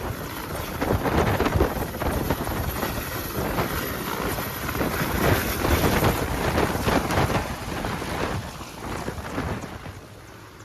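Helicopter close by, its rotor wash buffeting the microphone in loud, gusty rushes of wind noise that ease off over the last couple of seconds.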